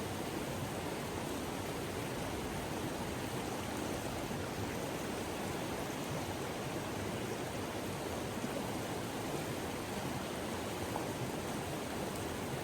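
Mountain river rushing, a steady even wash of flowing water.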